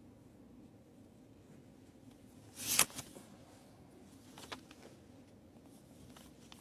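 Faint room hum with a short rustle a little under three seconds in, the loudest sound, and a smaller rustle about two seconds later.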